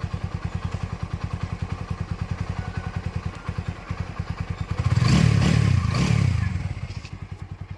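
TVS Apache RTR 200 4V's single-cylinder engine idling with an even, rapid exhaust beat, blipped once to a louder rev about five seconds in, then settling back to idle. This is the beat after a full engine rebuild (cylinder, valve and rocker kits, timing tensioner), with the earlier engine noise gone and the original beat restored.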